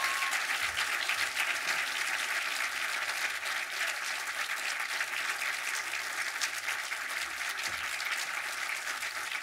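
Theatre audience applauding, many hands clapping in a dense, steady patter that eases off slightly toward the end.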